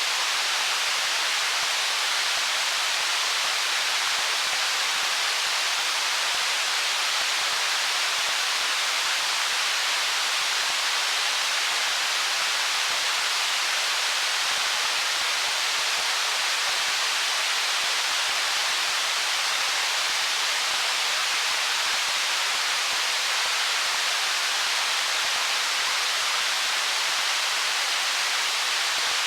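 Stream water flowing over stones: a steady, even rushing hiss with little deep rumble and no change in level.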